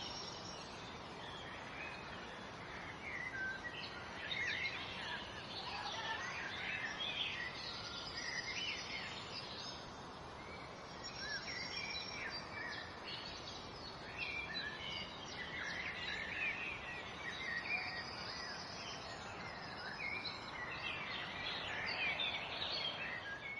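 Birdsong: many short chirps and trills from several birds over a steady background hiss.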